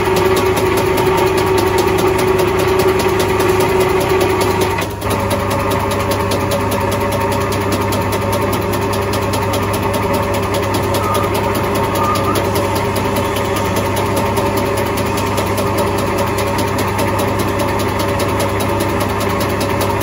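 Metal-working lathe running steadily, its motor and gearing humming as it turns a plastic pipe against the cutting tool, which is turning a groove into the pipe. The sound drops briefly about five seconds in, then carries on with a slightly changed pitch.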